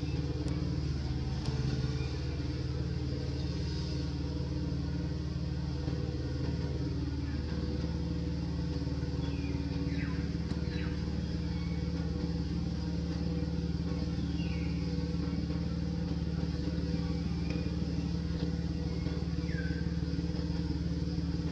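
Steady low hum of an engine running, with a few faint, short high chirps that sweep downward.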